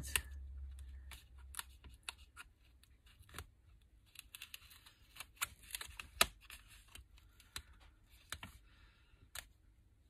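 Light scratching and scattered small clicks as a pointed craft tool picks at the red liner of double-sided tape on a piece of card, with soft paper handling. One sharper click comes about six seconds in.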